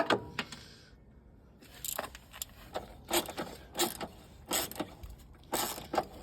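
Hand tools working on car bolts: a socket wrench and metal parts clinking and scraping in short, irregular bursts.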